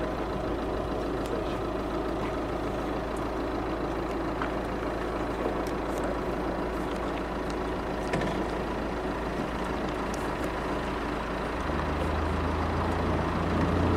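A steady rushing background, and about twelve seconds in a vehicle engine's low hum comes in and grows louder.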